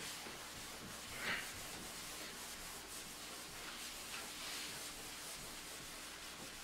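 Faint rubbing of a chalkboard eraser wiping chalk writing off the board.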